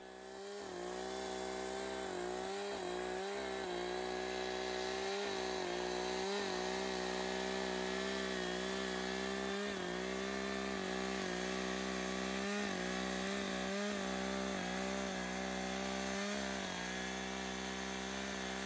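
Chainsaw running at wide-open throttle, ripping lengthwise through a log as it is pushed along a guide-track mill. It comes in during the first second, then holds a steady pitch with small dips as the chain loads in the cut.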